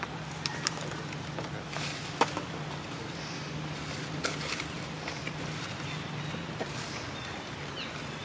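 Outdoor background: a steady low hum with scattered light clicks and ticks.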